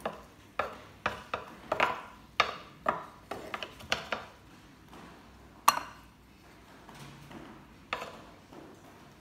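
Metal fork clinking and tapping against a glass salad bowl as the salad is tossed: a string of irregular sharp clicks with short ringing tails, one louder clink a little past halfway.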